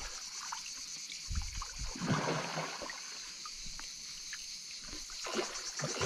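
Water splashing in a couple of bursts, about a second in and again near the end, as a hooked carp thrashes at the surface and the angler wades. Crickets chirr steadily underneath.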